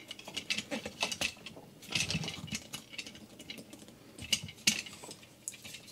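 Irregular light plastic clicks and knocks of a Transformers action figure being handled and transformed by hand.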